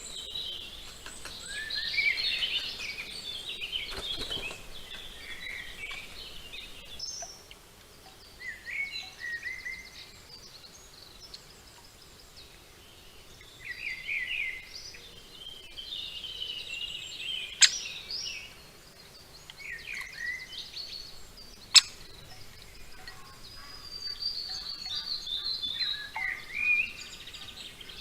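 Wild birds calling and singing, a run of short chirps and trills, with two sharp taps about four seconds apart standing out above them.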